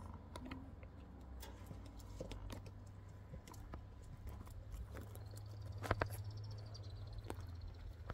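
Scattered light clicks and ticks at irregular intervals over a low steady rumble, with a couple of sharper clicks about six seconds in. A faint high chirping call runs briefly near the middle.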